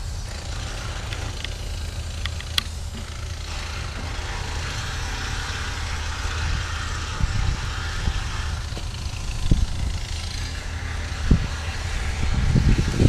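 Distant diesel locomotive running with a steady low rumble under outdoor background noise. A sharp click comes about two and a half seconds in, and a louder, uneven low rumble builds near the end.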